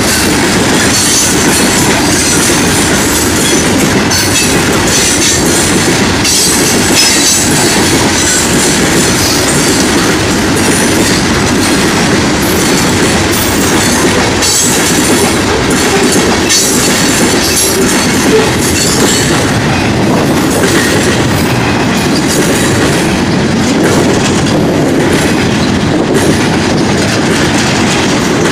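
Florida East Coast Railway freight train rolling past at close range: a loud, steady rumble and clatter of steel wheels on the rails as the freight cars go by.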